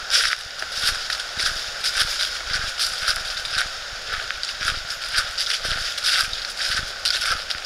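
Footsteps crunching through dry fallen leaves at a walking pace, about two steps a second.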